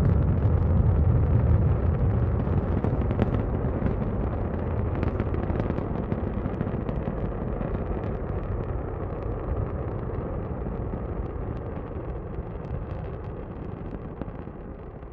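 Rocket launch: the engines' deep rumble with ragged crackle, slowly fading away as the vehicle climbs.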